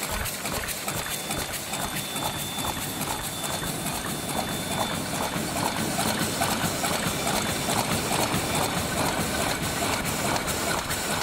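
MS-C600M automatic double-turntable paper cup machine running: a fast, even mechanical clatter, with a faint high whine during the first few seconds.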